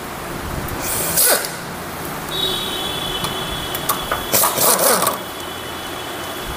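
Tools working on the timing gear bolts of a motorcycle engine: short bursts of metallic clicking and scraping, a quick run of them about four to five seconds in, with a steady high whine coming in about two seconds in.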